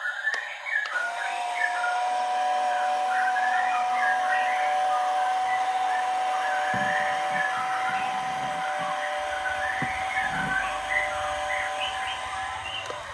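RC excavator's electric hydraulic pump running with a steady high whine. It starts about a second in and cuts off just before the end.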